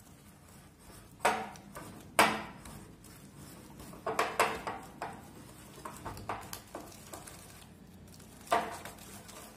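Wire whisk beating butter, sugar and yogurt in a glass bowl, its wires knocking against the glass in irregular clinks. The loudest clink comes about two seconds in.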